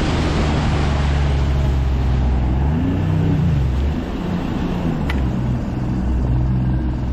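A boat's outboard motor running under way, its pitch rising and falling once about three seconds in, with wind on the microphone.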